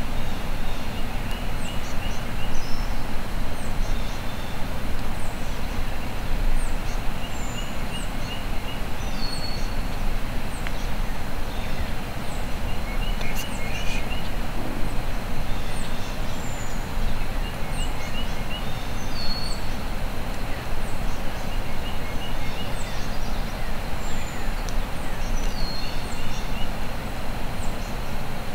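Wild turkey gobbler gobbling faintly, a short burst of rapid notes every few seconds, over a steady hiss. Songbirds chirp and whistle in the background.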